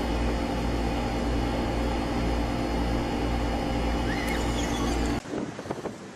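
A steady mechanical hum, a constant low drone with several steady tones over it. It cuts off abruptly about five seconds in, giving way to quieter, uneven wind noise on the microphone.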